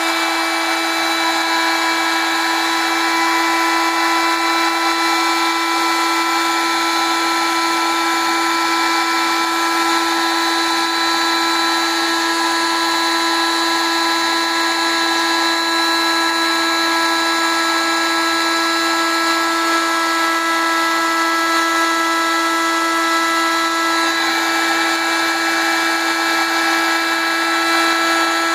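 Electric heat gun running steadily: its fan motor gives a constant whine over a rush of blown hot air as it shrinks heat-shrink tubing. The tone shifts slightly about 24 seconds in.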